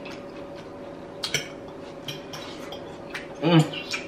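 Eating sounds: a few sharp separate clicks and clinks of cutlery and fingers against a plate of roasted stuffed bell peppers. About three and a half seconds in comes a short hummed "mm" from one of the eaters, the loudest sound.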